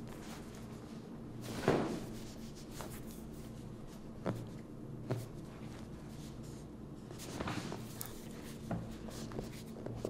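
Soft knocks and taps from hands working a leg and hip on a chiropractic treatment table, the loudest a single thump a little under two seconds in, over a faint steady low hum.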